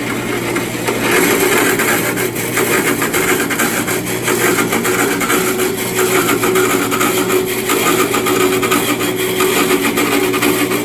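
Horizontal band saw cutting through a metal workpiece: a steady rasping grind of the blade in the cut over the hum of the saw's motor, getting louder about a second in.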